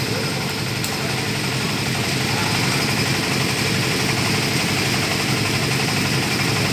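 An engine idling steadily, an even running hum with no change in speed.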